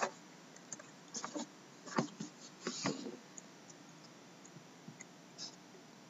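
Handling noise from a sealed hockey card tin being picked up and turned: scattered light clicks and knocks, most of them in the first three seconds, then only a few faint ones.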